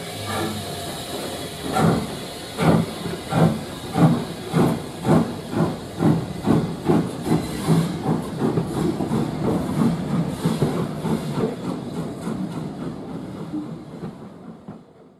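Steam tank locomotive pulling away with its coaches under steam hiss. Its exhaust beats start about two seconds in and quicken steadily as it gathers speed, then blur together and die away near the end as the train moves off.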